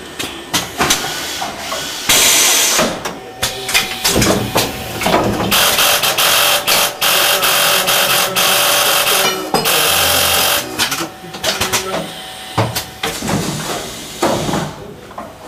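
Automated assembly machine cycling: repeated sharp clicks and knocks of its actuators, with bursts of compressed-air hiss. A short hiss comes about two seconds in and a longer one lasts about four seconds from around five seconds in.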